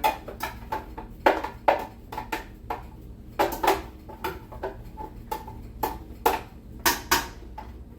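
Utensil clinking and knocking against a metal cooking pot of tomato-based sauce, in an irregular run of about three knocks a second.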